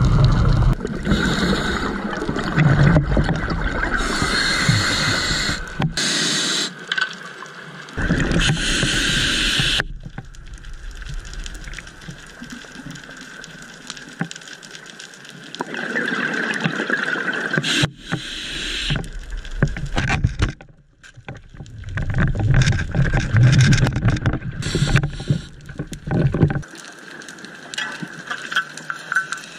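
Scuba diver breathing underwater through a regulator: stretches of rumbling, gurgling exhaled bubbles alternating with quieter hissing, with several sudden shifts in level.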